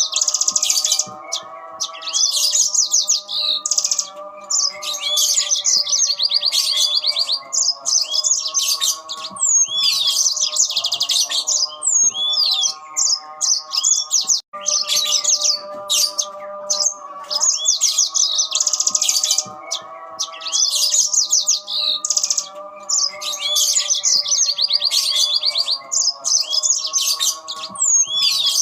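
Yellow-fronted canaries (Mozambique canaries) singing back and forth in quick, high, trilling and chattering phrases with short gaps between them. Beneath them runs a steady chord of several held tones that shifts every few seconds.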